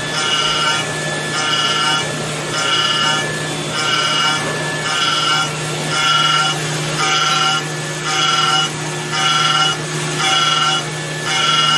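CNC milling machine cutting an aluminium part under flood coolant: a steady spindle hum with a whine that comes and goes about once a second as the cutter sweeps back and forth through the metal.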